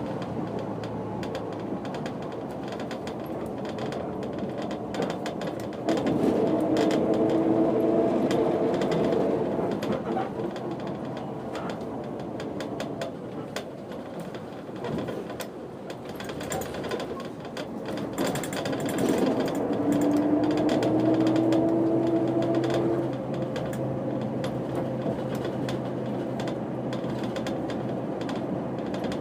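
Setra 315 UL bus heard from inside while driving, its diesel engine running with a steady rattle. The engine pulls louder twice, about six seconds in and again from about eighteen to twenty-three seconds, the second time with its note rising as the bus accelerates.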